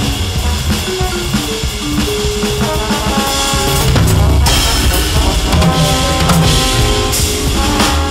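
Jazz four-beat swing played on a Roland V-Drums electronic drum kit, the sticks working the pads and cymbals, over a sequenced backing from a Maschine Studio with bass and held chord notes.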